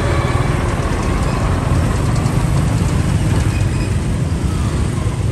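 Steady low engine rumble of street traffic, with no single vehicle passing clearly.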